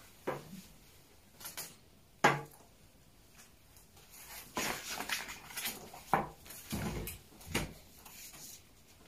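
Tableware and cardboard props being picked up and cleared from a table: scattered clinks and knocks, the sharpest about two seconds in, with a busier run of them in the second half.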